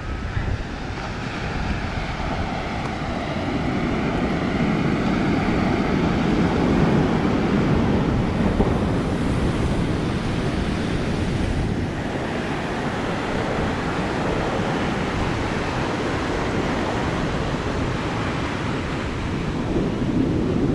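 Sea surf washing onto a sandy beach, a steady rush that swells to a peak about halfway through and then eases, with wind buffeting the microphone.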